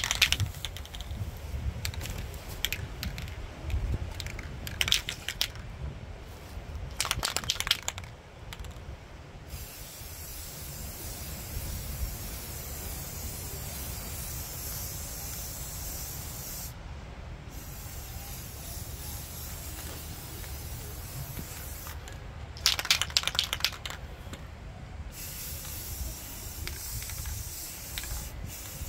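Aerosol spray-paint can hissing in long steady passes, broken by short spells of rapid rattling: the can being shaken, its mixing ball knocking inside. Several shaking spells come in the first eight seconds, and one more about two-thirds of the way through.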